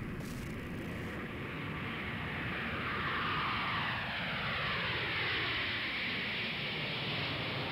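Steady rushing noise of a moving vehicle, growing a little louder partway through, with a sweeping tone that falls in pitch.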